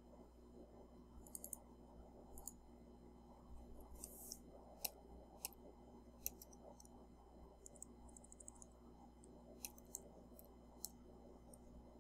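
Faint computer mouse clicks, about a dozen short, sharp ones at irregular intervals, over a low steady hum.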